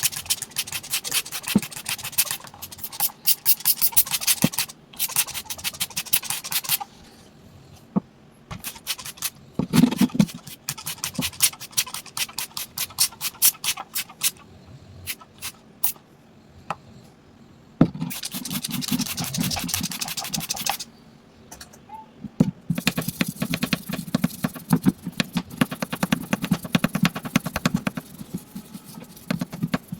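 Rapid scraping and scrubbing strokes on a hard surface, in runs of quick strokes broken by short pauses.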